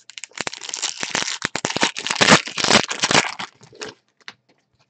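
Plastic-foil wrapper of a 2020 Panini Diamond Kings baseball card pack crinkling and tearing as it is ripped open: about three seconds of dense crackling, loudest in the middle, dying away to a few clicks.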